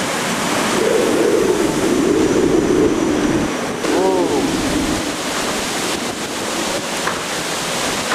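Typhoon-force wind blowing hard with heavy wind-driven rain, a dense steady rush. A wavering howl rises and falls for about three seconds, and a short rising-and-falling tone follows just after it.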